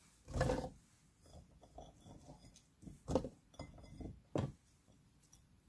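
Garlic cloves and a ceramic bowl being handled while the cloves go into a plastic blender jar: three soft knocks, about half a second, three and four and a half seconds in, with faint small clicks between them.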